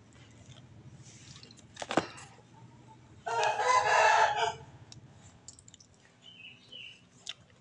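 A rooster crows once, about three seconds in, for about a second and a half. A single sharp knock comes about a second before it.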